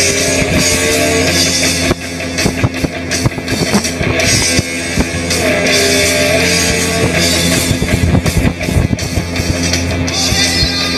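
Rock music with singing, guitar and drums, over a steady low drone from the jet boat's engine.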